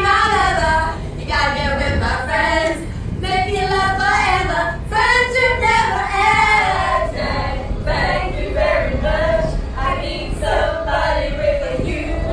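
A group of women singing together.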